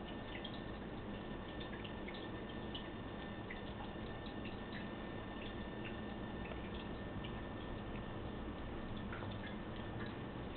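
A cat chewing corn kernels off a cob, making small, scattered clicks over a steady background hiss.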